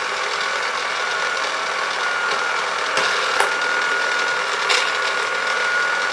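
Tandy/Radio Shack Armatron toy robot arm running: its small electric motor and plastic gear train make a steady whirring whine, with two short clicks from the gears. Some of the arm's functions aren't working, which turns out to be caused by a cracked gear.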